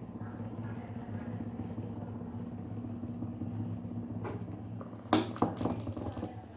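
Small battery-powered electric motor of a homemade cardboard table fan running with a steady hum. About five seconds in, a short cluster of knocks and clatter.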